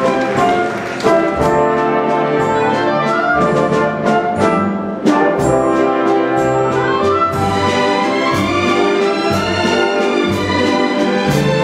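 Symphony orchestra playing a waltz live, with the brass to the fore.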